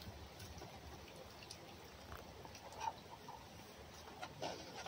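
Faint soft clicks and small rustles of a red fox eating at close range, over a low steady background noise.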